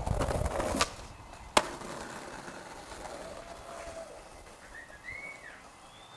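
Skateboard wheels rolling over rough pavement, with two sharp clacks of the board under a second and about a second and a half in. The rolling then fades away.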